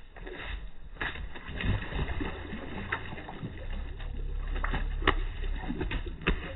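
Pigeons bathing in a stone water basin: water splashing and sloshing as a bird beats its wings and dunks itself, with several sharp splashes, the loudest about five seconds in.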